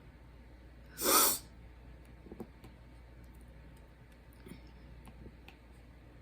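A person's short, sharp breath noise about a second in, followed by a few faint clicks.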